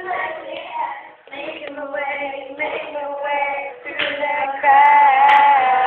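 Young girls singing together, with a long held note near the end.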